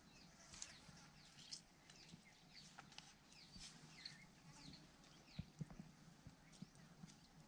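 Faint outdoor ambience with small birds chirping in short, repeated calls. A few soft low knocks come about five and a half seconds in.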